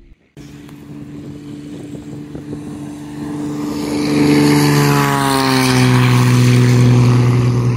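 Single-engine light propeller plane running at high power on its takeoff run. The engine grows louder as the plane approaches, and its pitch drops about five seconds in as it passes close by.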